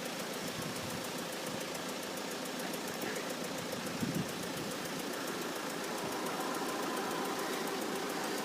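Diesel engine drone of an approaching Class 158 diesel multiple unit, steady and growing a little louder with a faint humming tone in the second half. A brief low thump about four seconds in.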